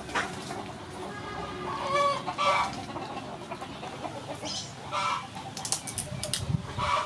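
Chickens clucking, a short call every second or two, with a few sharp clicks about five to six seconds in.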